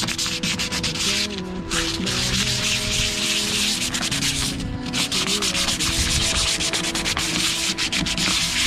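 150-grit sandpaper rubbed back and forth by hand over the painted steel floor of a pickup bed, scuffing the clear coat so a roll-on bed liner will bite. A rapid run of scratchy strokes that pauses briefly twice.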